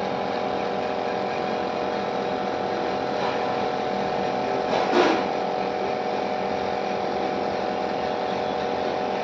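A small motor running with a steady hum. About five seconds in there is one brief, louder sound.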